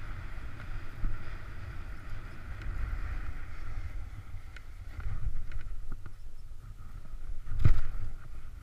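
Snowboard sliding and carving over snow, the edge scraping steadily, with wind rumbling on an action camera's microphone. The scraping fades as the board moves onto softer snow, and there is a louder thump near the end.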